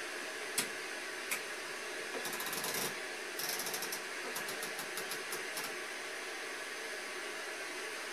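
The rotary channel selector on a 1991 Goldstar 13-inch colour TV clicking through its detents: a couple of single clicks, then quick runs of clicks, which stop a little over halfway. Under it runs a steady hiss of static from the TV's speaker, tuned to channels with no signal.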